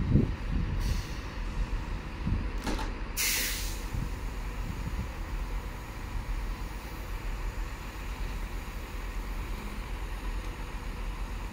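Compressed air hissing out of a standing diesel multiple unit's air brakes: one sharp hiss about three seconds in that quickly fades, with fainter hisses just before it, over a steady low rumble.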